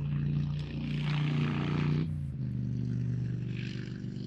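Golf cart motor running as the cart drives off, its pitch dropping and easing about two seconds in.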